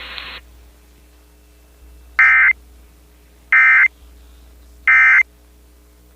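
Emergency Alert System end-of-message signal: three identical short bursts of SAME digital data tones, each about a third of a second long and about a second apart, marking the end of the warning broadcast.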